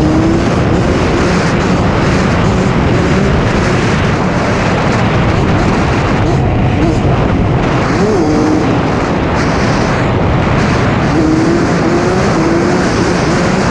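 Two-stroke dirt bike engine running while being ridden, its pitch rising and falling through revs with a few quick rises near the end, over a loud rushing noise.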